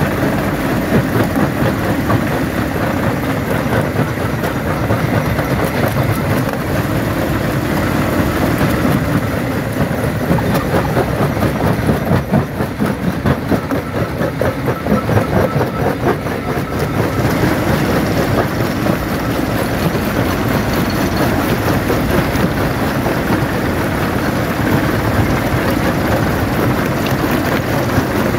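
Jaw crusher running under load, breaking stone: a steady heavy machine din packed with the close, uneven clatter of rock being crushed.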